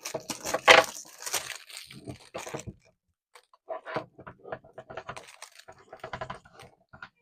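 Hands handling a large vanity mirror and its clear plastic film: irregular knocks, clicks and crinkly crunching, with a short pause about three seconds in.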